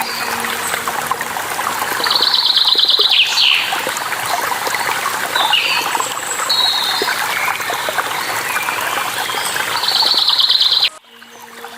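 Running water of a waterfall, a steady rush, with songbirds chirping over it, including two fast trills. The whole sound drops away abruptly near the end.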